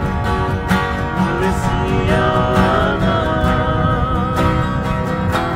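Acoustic guitar music with a steady strummed beat and a held melody line over it.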